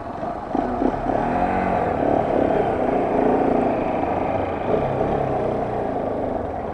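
Motorcycle engine running while being ridden, its pitch rising and falling as the rider works the throttle and gears, over a steady low rumble.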